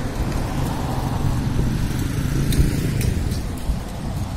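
A car driving past on the road, its engine and tyre noise a steady rumble that swells a little past the middle, with wind buffeting the phone's microphone.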